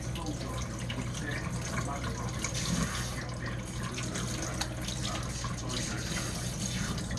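Tap water spraying from a hose sprayer onto hair and splashing into a stainless-steel kitchen sink, a steady running-water hiss with irregular splashes, as hair dye is rinsed out until the water runs clear.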